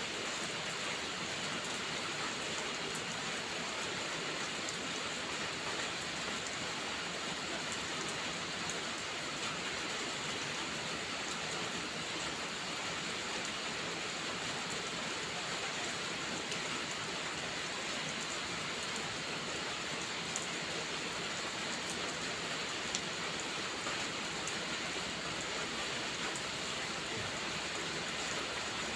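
Steady heavy rain, an even hiss with no let-up. A few faint, sharp crackles of a wood fire stand out about 20 and 23 seconds in.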